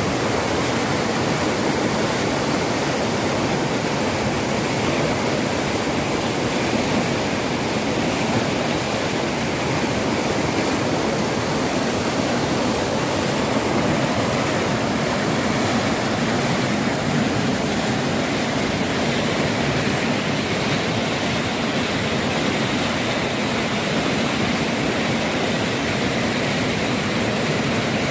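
Floodwater rushing: a steady, loud, unbroken wash of turbulent water.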